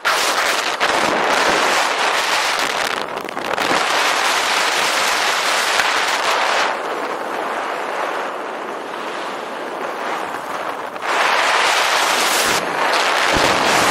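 Freefall wind rushing over the microphone during a sit-fly skydive: a loud, steady rush that eases somewhat in the middle and picks up again near the end.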